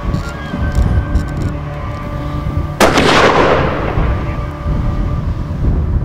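A single rifle shot a little under three seconds in, with its report echoing away for over a second.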